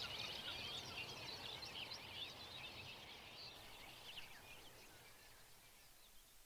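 Small birds singing: many overlapping short chirps and trills that fade away over the first few seconds to near silence.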